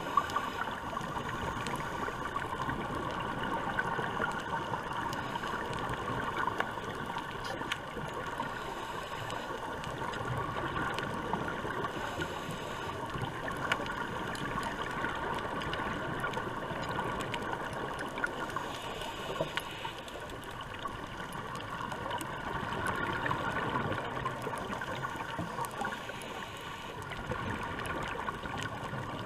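Underwater ambience picked up by a submerged camera: a steady, muffled watery hiss with a few scattered faint clicks.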